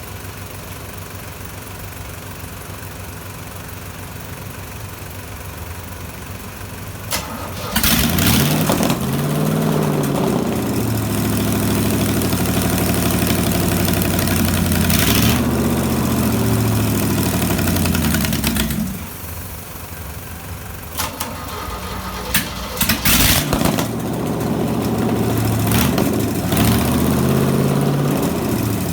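V8 boat engine starting with a sudden loud onset about eight seconds in, then revving up and down. It drops back near the middle, then catches again with a few sharp blips and revs up and down once more.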